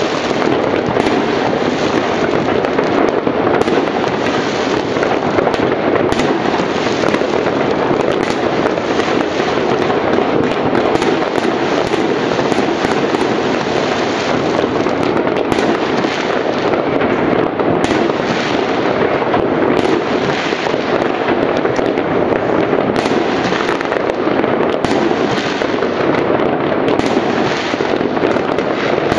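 Many fireworks and firecrackers going off across a town at once: a dense, unbroken crackle of bangs and pops, near and far, with no pause.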